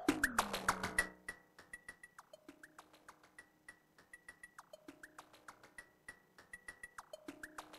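Electronic music from a Korg volca drum and Arturia MicroFreak: a fast, even run of dry clicks with short high blips that drop sharply in pitch and lower held synth notes. A louder falling tone fades out about a second in, and the pattern plays on more quietly.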